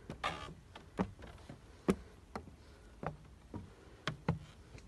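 Footsteps climbing stairs: irregular knocks about twice a second, with a brief rustle near the start.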